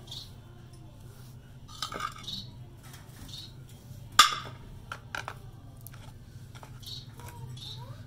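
Scattered clinks and knocks of small metal feeder trays being filled with crumbly soft food and handled, the sharpest knock about four seconds in.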